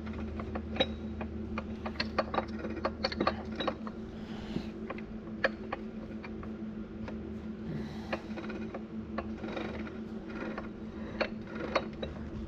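Steel gears of an Eaton RTLO16913A 13-speed truck transmission being turned and shifted by hand in the open case, giving irregular metallic clicks and clinks of gear teeth over a steady low hum.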